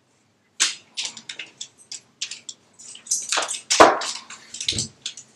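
Gloved hands crumpling and gathering butcher paper and scraps: irregular crinkling and rustling, with a soft thump about four seconds in.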